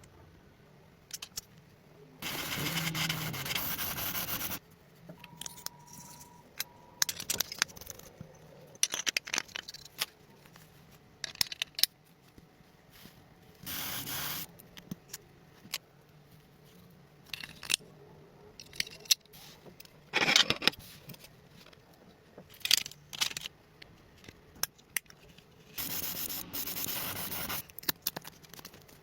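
Small parts of a model car being handled, with scattered clicks, taps and scraping. Four times there is a longer rush of scraping or rubbing noise lasting one to two seconds, the longest near the start and near the end.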